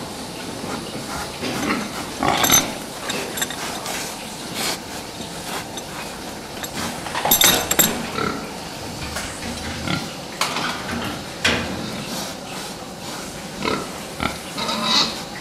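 A group of fattening pigs calling and shuffling in a crowded pen, with several sharper, louder cries, the loudest about two and a half and seven and a half seconds in.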